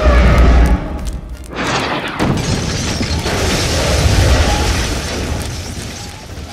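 Cinematic trailer sound effects: a deep boom, then a whoosh about a second and a half later, followed by a sustained low rumbling noise that fades toward the end.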